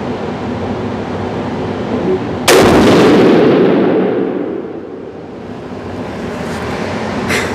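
A single 300 PRC rifle shot, a Seekins Havak PH2 firing Hornady Precision Hunter ammunition, about two and a half seconds in: a sharp crack followed by long reverberation that dies away over about two seconds in the enclosed indoor range.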